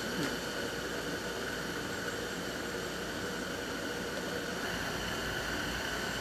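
Steady, even background hiss with a faint high steady hum.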